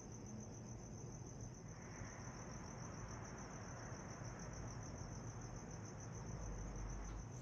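Crickets chirping in a steady, high-pitched, rapidly pulsing trill over faint low background noise.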